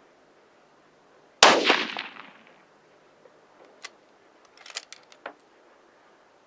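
A single unsuppressed .243 rifle shot about a second and a half in, its report echoing away over about a second. A few faint sharp clicks follow a couple of seconds later.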